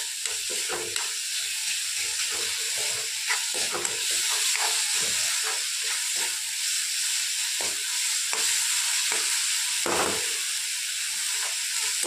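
Chopped tomatoes frying in oil in a metal kadhai, a steady sizzle under frequent scrapes and knocks of a spoon stirring against the pan. The tomatoes are being cooked down until they soften.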